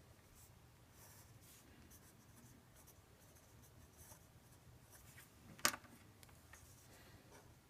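Faint scratching of a pen drawing a diagram in short strokes, with one sharp tap a little under six seconds in.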